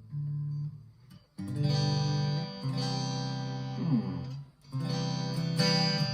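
Electric guitar played clean through a Blackstar ID:Core amp: a PRS SE Standard 24 on its coil-split neck humbucker, picking chords with a couple of short pauses and a note bend about four seconds in.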